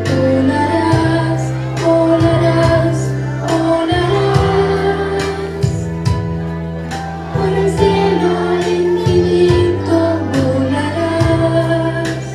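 A song with a female lead vocal over sustained bass notes and light regular percussion, with a group of children singing along.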